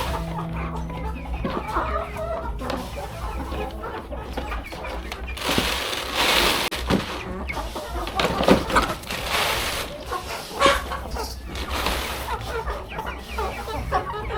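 Chickens clucking, with short calls scattered throughout and a few louder noisy stretches about six and eight seconds in.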